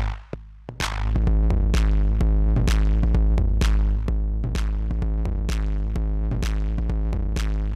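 Electronic drum-machine beat with a heavy sustained bass line, played through the BASS FACE drive and saturation plugin. The beat drops out briefly at the start and comes back in just under a second in, with a sharp hit about once a second over busy hi-hats.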